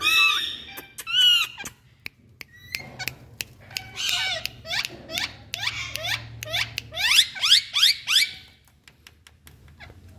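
Indian ringneck parakeets calling: two short pitched squeaks at the start, then a run of quick falling squeaks, about three a second, from about four seconds in to past eight seconds, with sharp clicks scattered throughout.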